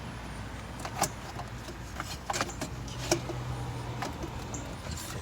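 Irregular clicks and knocks of hard parts being handled as a cast aluminium charge pipe is worked onto the throttle body of a BMW N54 engine, over a low steady hum.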